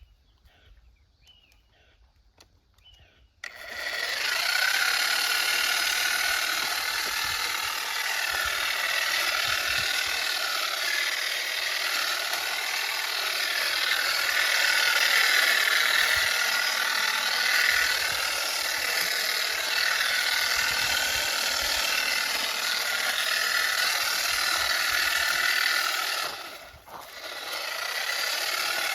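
Battery-powered hedge trimmer attachment on a 60 V lithium multi-tool, starting up about three and a half seconds in and running steadily with a slightly wavering whirr. It cuts out for a moment near the end, then runs again.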